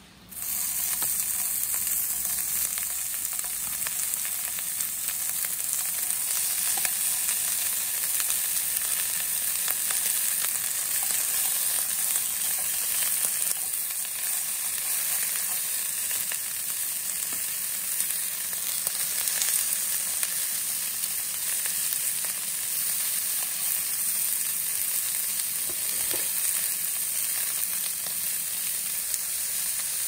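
Slices of marbled beef sizzling in a hot frying pan, starting suddenly as the meat goes in and then frying steadily with fine crackling.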